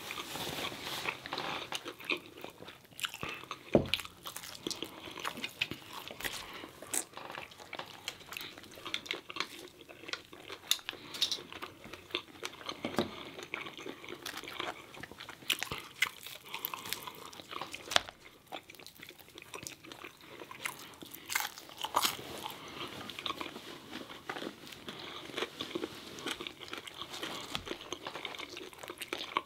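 Crunching bites and chewing of crispy fried chicken, with irregular sharp crackles throughout and a few louder crunches standing out.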